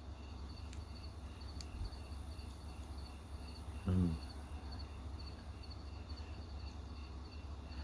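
Crickets chirping in a steady pulsing rhythm behind a low background hum, with a short murmur of a man's voice about four seconds in.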